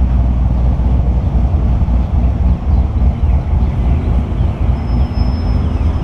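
Corvette V8 idling, heard from a camera mounted on the car's hood, with a steady low rumble and wind buffeting the microphone.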